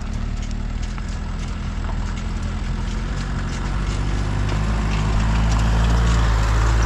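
Pickup truck engine running as the truck drives slowly along a dirt track and approaches, its low hum growing steadily louder as it comes close. Small ticks and crackles from the tyres on the dirt sit over it.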